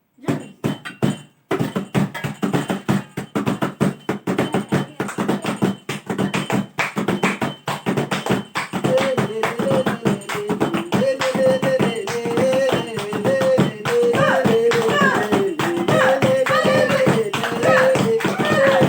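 Rekba, Saharan folk music of Zagora, played at home. A few loose percussion strokes give way to a fast, steady beat, and singing joins in about nine seconds in.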